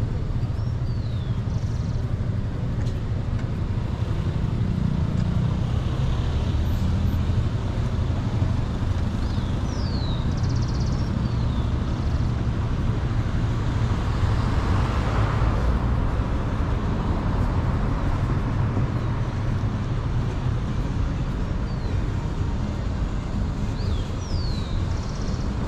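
Steady street traffic: a low rumble of engines and tyres, with a vehicle passing close about halfway through.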